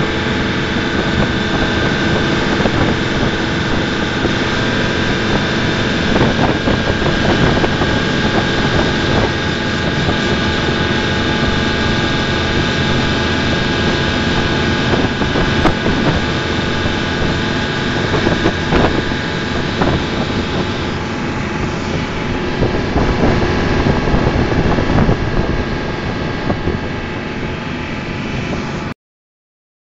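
Motor canoe's engine running steadily, a constant loud drone with a high steady whine, until it cuts off suddenly near the end.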